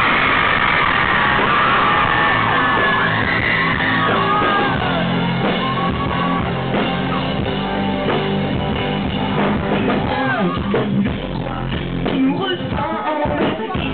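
A live rock band playing on stage while a crowd of fans screams; the high screams are strongest in the first few seconds, then the band carries on and a male voice sings into the microphone near the end.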